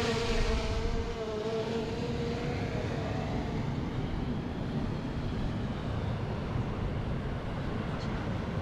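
DJI Mavic 2 drone's propeller whine, wavering in pitch and fading away over the first few seconds, over a steady low rumble.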